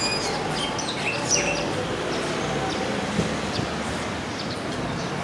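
Small birds chirping in short calls, most of them in the first second or so, over a steady outdoor background noise.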